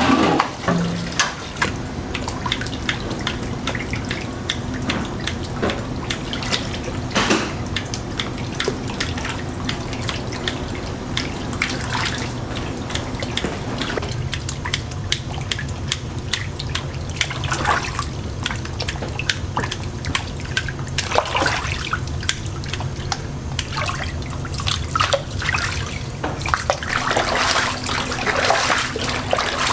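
Water splashing and sloshing as hands work freshly made rice cakes in a basin of cold water, with many small splashes and drips over a steady low machine hum.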